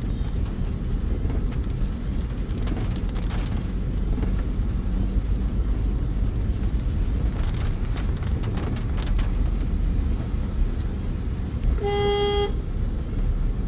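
Cabin noise of a car driving in heavy rain: a steady engine and tyre rumble with rain hiss on the bodywork and windshield. Near the end a car horn honks once, briefly.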